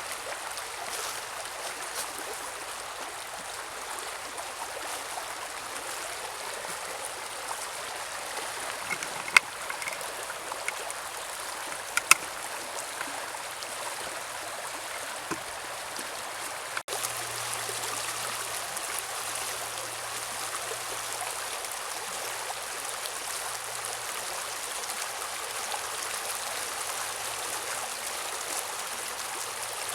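Mountain river running over rocks, a steady rush of water. Two sharp clicks stand out about nine and twelve seconds in, and the sound briefly drops out about seventeen seconds in, coming back slightly louder.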